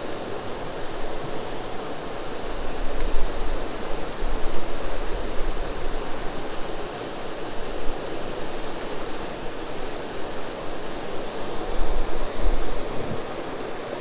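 Steady rush of a high, flooded creek pouring over a low weir in whitewater. Wind rumbles on the microphone twice, near the start and near the end.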